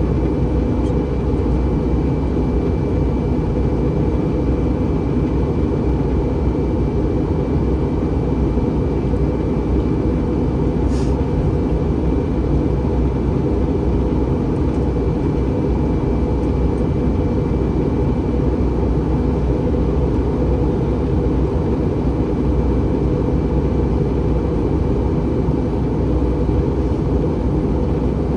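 Steady cabin noise inside an Airbus A321 airliner: engine and airflow noise, low and even, with a faint steady high whine above it.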